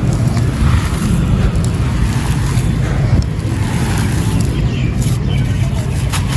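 Gritty, stony sand-cement chunks being crushed and crumbled, with scattered faint crackles over a steady low rumble.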